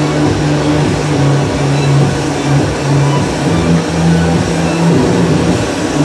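Steady loud roar of the gas burners used for working borosilicate glass. Over it, low music notes change pitch every half second or so.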